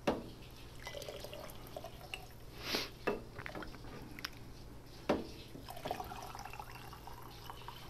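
Chicken stock trickling and dripping as it is poured from a mug through a small strainer basket into a glass canning jar. The mug is dipped into the roaster pot between pours, with a few light knocks and splashes.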